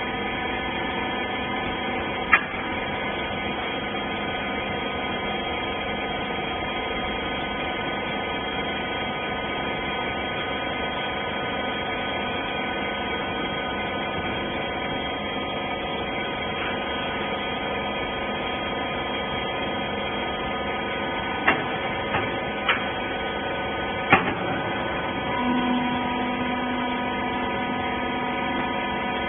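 Hydraulic rag baler's electric motor and pump running with a steady hum, with a sharp knock a couple of seconds in and three more about three-quarters of the way through. A low steady tone joins near the end.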